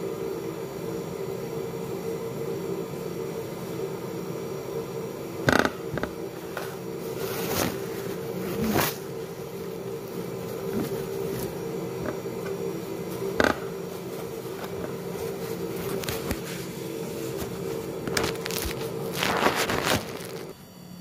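A steady low hum runs on and cuts off shortly before the end, with knocks and scrapes from the phone and table being handled, the sharpest about five and a half and thirteen and a half seconds in and a cluster near the end.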